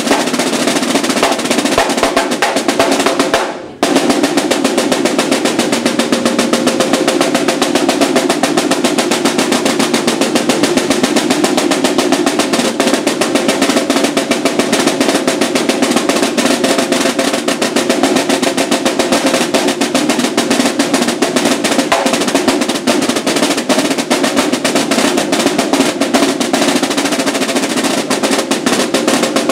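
Two marching snare drums played together in a fast, dense stream of rolls and rudiments. There is a short break about three and a half seconds in, then the drumming resumes.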